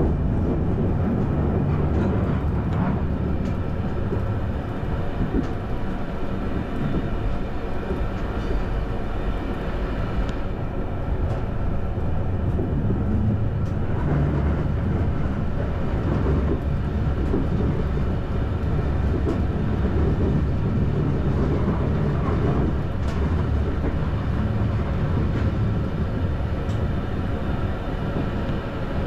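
Electric passenger train running on the rails, heard from on board: a steady rumble of the wheels with a few faint clicks.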